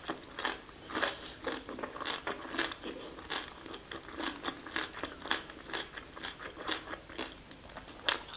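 Close-miked chewing of a mouthful of curry-soaked basmati rice: wet, sticky mouth clicks and smacks, about two or three a second, with a sharper click near the end.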